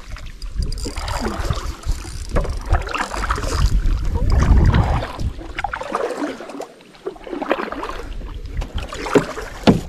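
Canoe being moved on the water: irregular splashing and knocks against the hull, with wind buffeting the microphone, heaviest about three to five seconds in.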